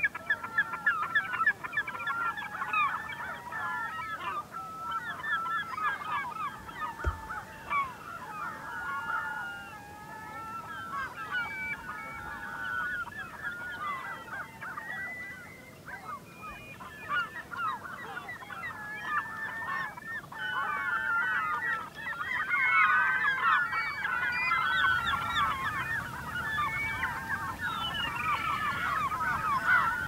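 A flock of birds calling all at once: a dense, unbroken chorus of short overlapping calls, a little louder in the last third.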